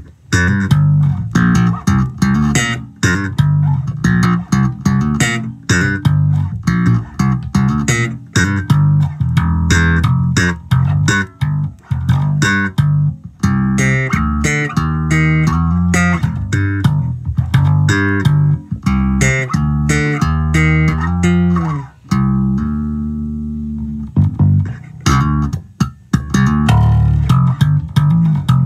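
Peavey Forum V five-string electric bass played solo, fingerstyle: a busy run of plucked notes with sharp attacks, easing into a few long held notes about three-quarters of the way through before the quick playing resumes.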